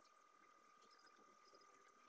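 Near silence: faint room tone with a thin steady whine and a few faint ticks.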